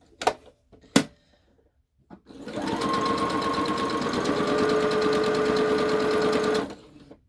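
Electric sewing machine stitching a seam: two sharp clicks in the first second, then the motor speeds up and runs at a fast, even stitching rhythm for about four seconds before stopping.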